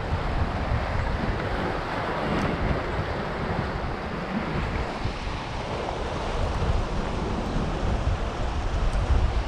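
Rough sea surf washing and breaking against the rocks of a jetty, with wind buffeting the microphone in a low, shifting rumble.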